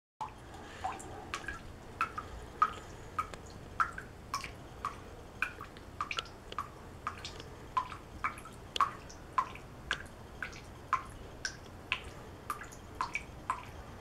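Water dripping from a bathroom faucet into the sink basin, each drop a short plink, about two a second.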